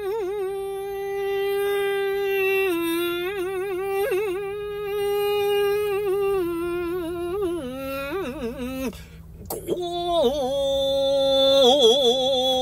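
Solo shigin, Japanese classical poetry chanting: one voice holding long drawn-out notes with wavering ornaments, stepping down in pitch. A brief break for breath about nine seconds in is followed by a lower held note with more wavering.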